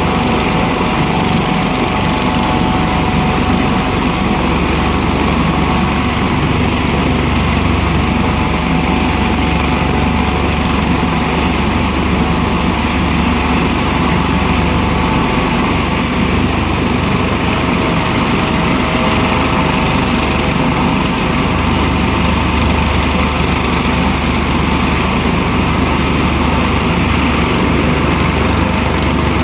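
Johanniter rescue helicopter running on the ground during start-up: turbine engines and rotor going steadily, with a constant high turbine whine.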